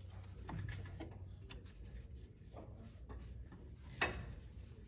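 Scattered light clicks and knocks of a socket and hand tools on the brake caliper bolts, with one sharper click about four seconds in.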